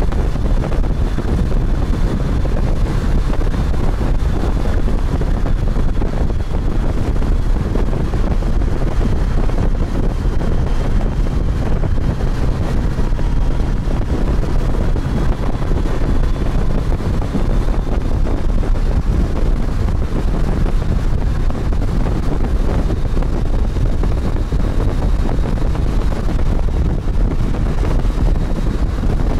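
Steady wind rush on the microphone of a motorcycle underway, over a low rumble of engine and road noise.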